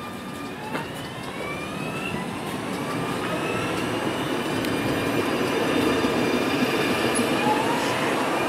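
Alstom Citadis Dualis tram-train pulling away from the platform and accelerating, its whine rising in pitch several times over a rumble of running gear that grows steadily louder.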